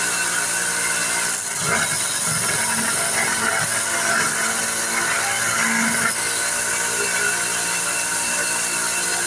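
A power tool running steadily, with a constant hum under a continuous grinding hiss.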